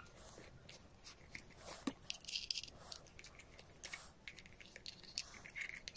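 Plastic parts of a phone tripod being handled and fitted together: scattered clicks and rustles.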